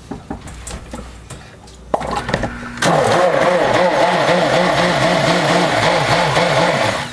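Electric stick blender motor running for about four seconds, its hum wavering up and down a couple of times a second, then switched off.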